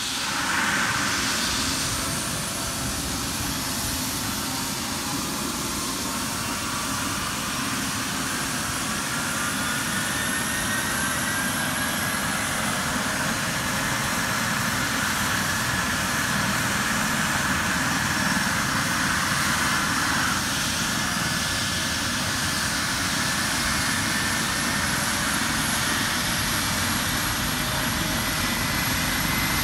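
Eurocopter EC135 helicopter's twin turbine engines and rotor running on the ground before lift-off: a steady turbine whine and rush, with the whine's pitch rising slowly.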